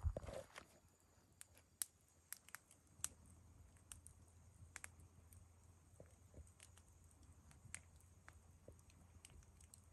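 Faint campfire crackling: scattered sharp pops and snaps at uneven intervals, with a louder thump at the very start.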